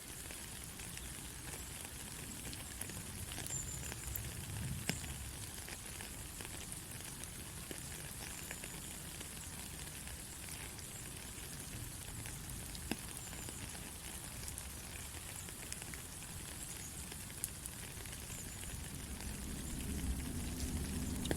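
Steady rain falling: an even hiss with scattered sharp drop clicks. A low rumble swells near the end.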